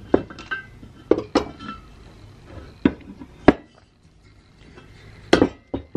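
Brass blowlamp parts and pliers clinking and knocking as the lamp is taken apart: a string of separate sharp metallic clinks, some with a short ring, the loudest about three and a half seconds in.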